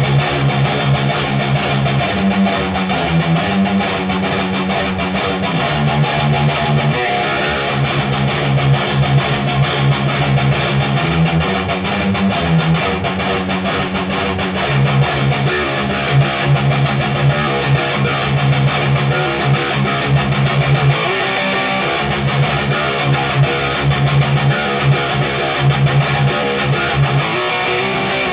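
Cranked, high-gain electric guitar riffing through a Randall Diavlo RD20 tube amp on its Fortin boost channel, played on an Ibanez RGA42FM with a Seymour Duncan Omega bridge humbucker. The playing is continuous and fast, built on low notes.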